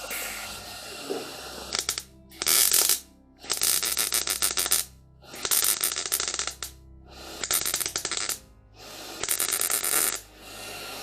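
Welder crackling in short stitch welds on sheet-metal apron extensions: about five bursts, each a second or so long, with brief pauses between them.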